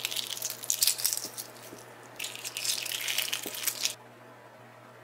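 Shell of a hard-boiled egg crackling and crinkling as it is peeled off by hand, in two spells of quick crackles that stop about four seconds in once the egg is bare.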